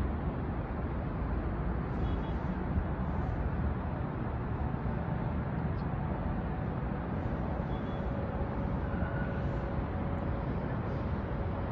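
Steady hum of city traffic, an even wash of noise with no distinct events.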